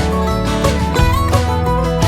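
Background music: a country-style song, with strummed acoustic guitar playing between sung lines.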